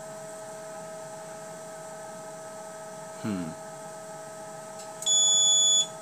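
VESDA VLP aspirating smoke detector giving one high, steady beep of just under a second near the end, its sounder signalling that test smoke has brought it to alert level. Under it runs the steady hum of the detector's aspirator fans.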